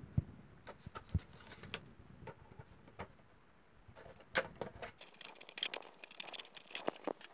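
Scissors snipping through the thin wall of a clear PET plastic bottle: a quick run of sharp, crackly cuts starting about four seconds in and coming thicker from about five seconds, after a few faint knocks of the bottle being handled.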